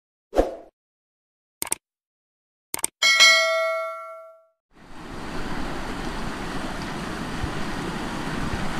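Subscribe-button animation sound effects: a short soft thud, two mouse clicks, then a notification bell ding that rings out for about a second and a half. From about five seconds in, the steady rush of a waterfall.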